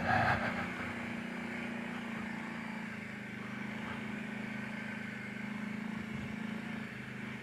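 Kawasaki Brute Force 750 ATV's V-twin engine running at a steady, even speed, with no revving.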